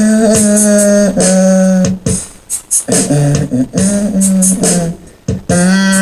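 Music from a home-made song: held chords with short repeating rhythmic accents on top. The chords break off about two seconds in, turn choppy for a few seconds and return in full near the end.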